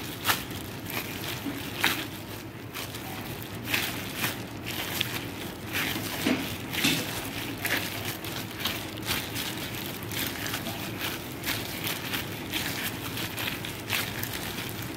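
Bread dough kneaded by hand on a floured countertop covered with plastic cling wrap: irregular pressing and slapping strokes, with the plastic crackling under the dough.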